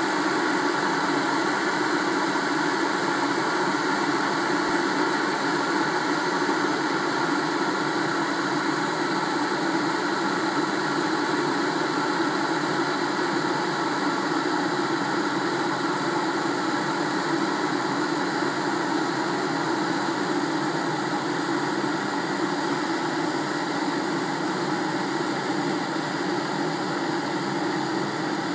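A machine running with a steady, unbroken drone that holds an even level throughout.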